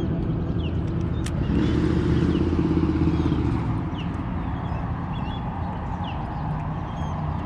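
A boat motor running steadily at low speed, with birds chirping over it; for about two seconds, starting a second and a half in, a rapid rattle rises above the motor.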